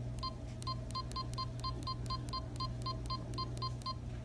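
Canon PowerShot G7 X Mark II beeping as its buttons are pressed to set the date and time: about fifteen short, identical electronic beeps in quick, slightly uneven succession, over a steady low hum.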